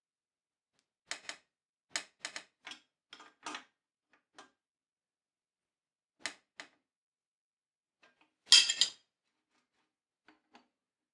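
Metal spanners clinking against a bicycle bottom bracket's adjustable cup and lockring as they are fitted and turned: a run of light clicks in the first few seconds, two more a little after the middle, and the loudest clatter about eight and a half seconds in.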